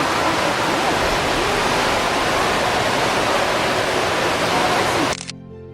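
Loud, steady rush of flowing water, like a waterfall or fast stream, that cuts off abruptly about five seconds in. Soft music with held notes follows.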